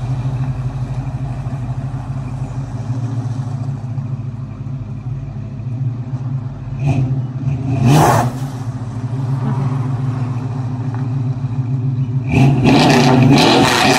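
1971 Chevrolet C10 pickup's engine running at low speed as the truck moves slowly over gravel, with a short louder swell about eight seconds in and a louder, rougher stretch near the end.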